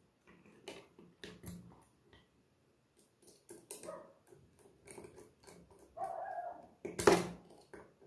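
Scattered small clicks and taps of a screwdriver and wires being worked into the screw terminals of plastic electrical switches, with a short squeak about six seconds in and a louder sharp click about seven seconds in.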